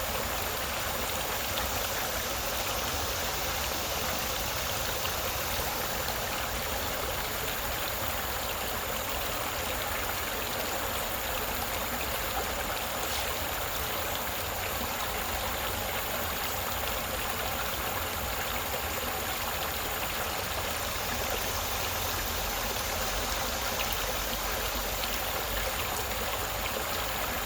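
Creek water babbling and trickling over stones, a steady rushing hiss.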